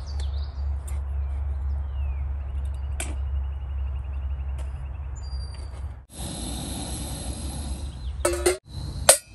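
Wind rumbling on the microphone, with a few light clicks, while a small camping stove is threaded onto a gas canister. About six seconds in this gives way to the steady hiss of the gas stove burning, and near the end a stainless steel pot clatters as it is set onto the stove.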